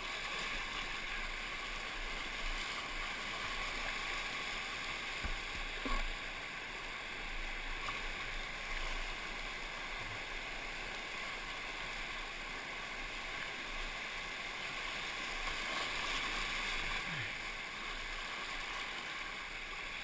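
Whitewater rushing steadily through a shallow, rocky rapid, heard from the kayak, with a couple of short knocks about five and six seconds in.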